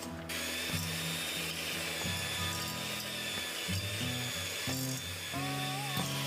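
Electric hand mixer switched on just after the start and running steadily, its wire beaters creaming butter and caster sugar in a glass bowl, with a faint motor whine.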